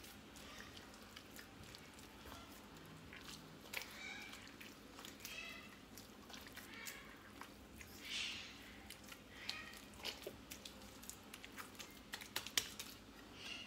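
Hands kneading and squeezing soft butter in a ceramic dish, giving faint irregular wet squishing and squelching with small clicks and squeaks. The butter is being worked with salt and thyme water to make smen.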